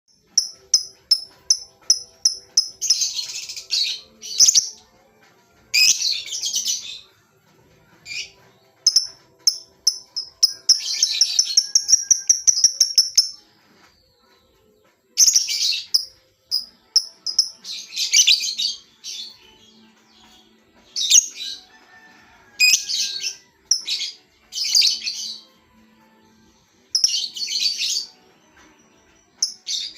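Lovebird calling in sharp, high chirps and bursts of harsh chatter, with a faster run of chirps partway through. The bird is over-excited, so it gives only short 'koek-koek' calls.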